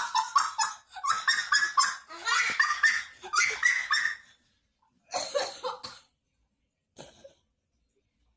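A person's rapid, rhythmic, laugh-like vocal bursts: long runs through the first four seconds, then a shorter run about five seconds in and a brief one near seven seconds.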